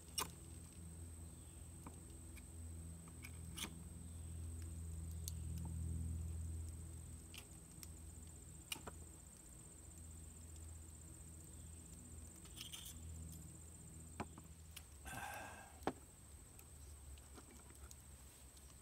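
Faint, scattered clicks and a short scrape of a metal fork against a metal skewer and a wooden cutting board as cooked kabob pieces are pushed off the skewer, over a low steady hum.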